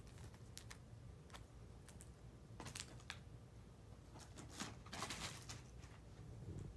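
Faint handling noises of a trading-card blaster box and its packs: a scatter of light clicks and crinkles, with a busier spell about five seconds in.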